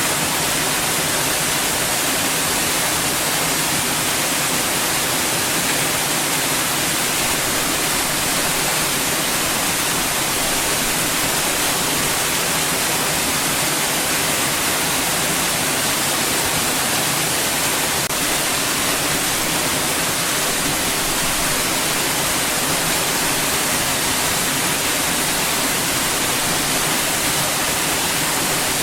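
Steady, unchanging white noise: an even hiss with most of its strength in the treble and no breaks or variations.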